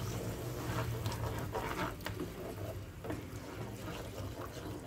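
Wooden spoon stirring a thin tomato-and-pepper-paste sauce in a nonstick frying pan: soft sloshing and scraping as the paste dissolves into the hot water, over a steady low hum.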